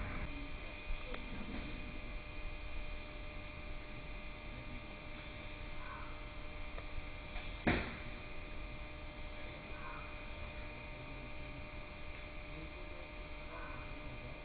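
A steady electrical hum, with three faint short bird calls a few seconds apart and a single click about eight seconds in.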